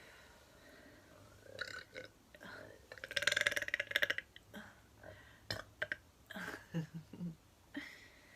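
A woman burping: one long, loud burp about three seconds in, lasting just over a second, with a rapid pulsing texture. Several shorter, quieter burps and gulps come before and after it.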